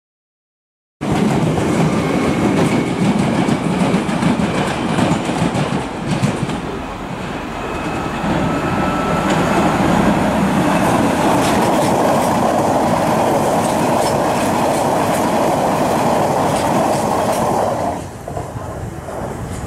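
London Underground 1996-stock Jubilee line train running past on surface track, wheels clicking over rail joints and points with a steady running drone. It starts abruptly about a second in and drops off suddenly near the end as the train clears.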